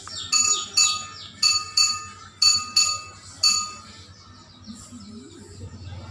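Bakso vendor striking a bowl with a spoon to call buyers: seven sharp ringing clinks, mostly in pairs, over about three seconds, then it stops.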